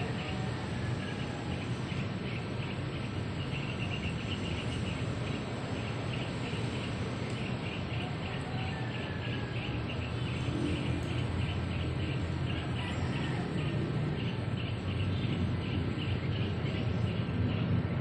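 Steady train of short, high chirps repeating several times a second, over a constant low rumble.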